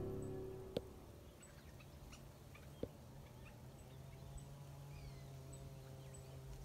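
Faint outdoor ambience with a few short, soft bird chirps and two light clicks, as music fades out at the very start.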